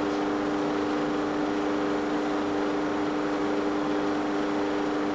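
Room air conditioner running: a steady hum with an even hiss.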